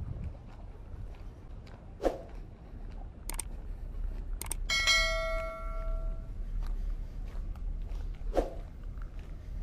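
Subscribe-button animation sound effect: two mouse clicks, then a bell chime about halfway through that rings out and fades over about a second and a half. Underneath is a steady low wind rumble, with a couple of soft thuds.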